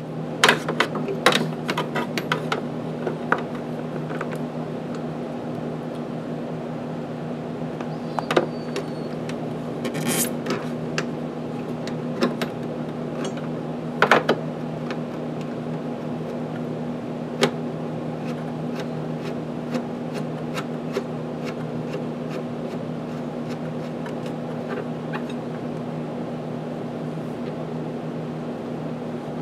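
Steady low machine hum, with scattered sharp clicks and clinks of tools and small metal parts being handled. The clicks come thickest in the first few seconds, then a handful more spread out.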